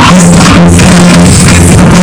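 Loud music with a heavy, shifting bass line blasting from a Volkswagen Saveiro's aftermarket car sound system.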